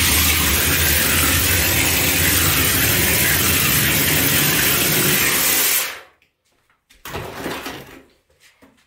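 Hopper bucket spray gun blowing plaster mortar onto a wall with compressed air: a loud, steady hiss that cuts off about six seconds in, then a short, weaker burst about a second later.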